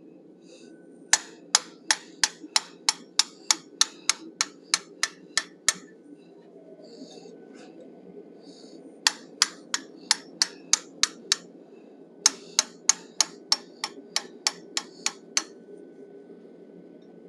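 Hammer striking a hand-held 1/8-inch fuller set on hot steel, shaping the ears of a forged bison head. The strikes come at about three a second in three runs: a long run, a short one after a pause of a few seconds, then another long run. A steady low hum sits underneath.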